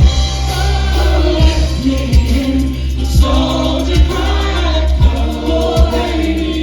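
Live folk band playing, with voices singing together over a deep bass and a steady drum beat about once a second.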